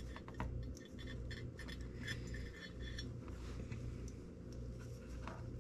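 Faint handling noises: small clicks and light rustles as thin wires and heat-shrink tubing are worked by hand, over a steady low hum.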